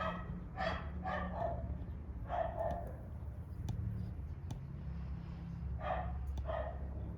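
A dog barking about six times, in loose groups of two or three, with a pause of about three seconds in the middle.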